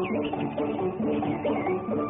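Instrumental cartoon soundtrack music, a bouncy run of quick, short notes.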